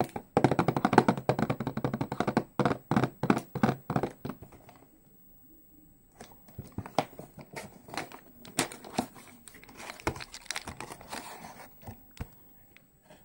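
Clear plastic wrap crinkling and tearing as it is stripped from a cardboard Choco Pie box, dense and loud for the first four seconds or so. Softer cardboard and wrapper rustles and clicks follow as the box is opened.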